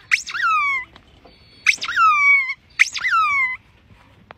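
A squeaky rubber ball being chewed by a German Shepherd: three squeaks about a second apart, each a sharp squeak that slides down into a falling squeal.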